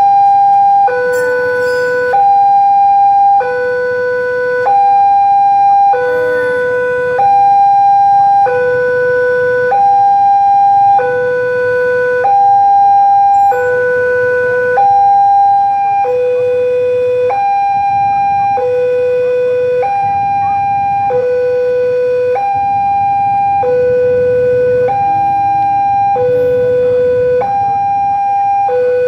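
Electronic two-tone level-crossing warning alarm, sounding while the barrier is down: a higher and a lower steady tone alternate evenly, each lasting a little over a second, without a break.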